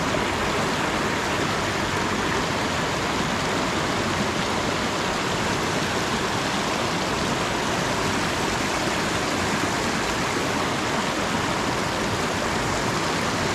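Steady rush of river water spilling over the rocks of a riffle at the bank.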